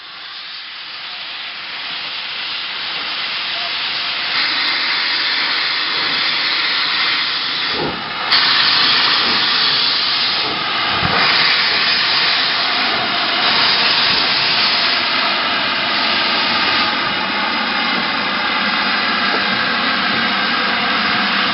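LMS Black 5 4-6-0 steam locomotive moving off with its cylinder drain cocks open, venting steam in a loud steady hiss. The open drain cocks clear condensed water from the cylinders as the engine starts away. The hiss builds over the first few seconds, dips briefly about eight seconds in, then comes back louder.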